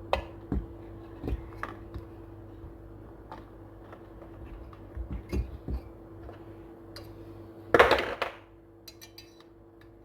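Hand tools and small metal chainsaw parts clinking and knocking on a workbench during a teardown, with one louder clatter about eight seconds in. A steady hum sits underneath.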